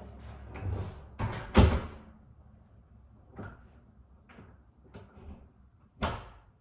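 Knocks and thuds of a wooden door being handled and fitted, a cluster of sharp knocks with the loudest about a second and a half in, then lighter scattered knocks and one more sharp knock near the end.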